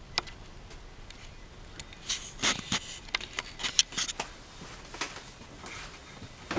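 Irregular clicks, knocks and short scrapes from hand work on a table being installed in a bus interior, with a cluster of sharp knocks from about two to four seconds in.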